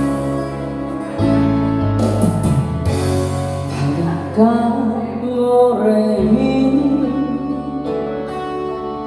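Instrumental introduction of a song: a gliding melody line over a steady bass accompaniment, ahead of the vocal entry.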